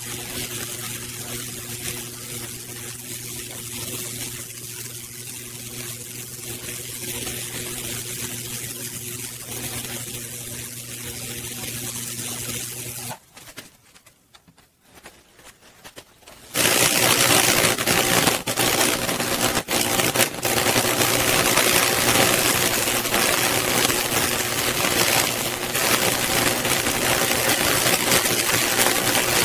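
High-voltage current from a microwave oven transformer arcing and burning fractal (Lichtenberg) figures into a wooden slab: a steady hissing, sizzling crackle with an electrical hum underneath. It cuts out about halfway for some three seconds, then comes back louder and harsher.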